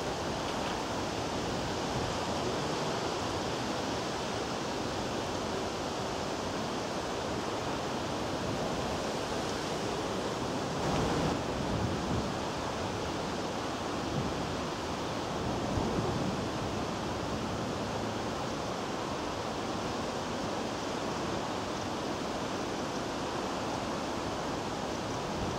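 Steady outdoor wind noise, with a couple of stronger gusts buffeting the microphone about midway.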